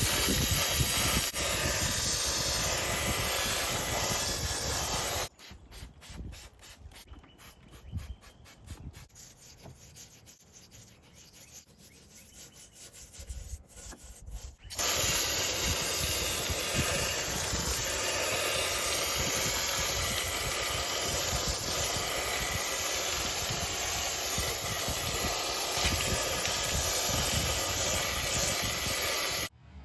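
A steady hissing spray, as of a hose, pressure washer or air nozzle cleaning an ATV's oil cooler. It cuts off after about five seconds, leaving a quieter stretch of scattered small ticks, then starts again at about fifteen seconds and stops abruptly just before the end.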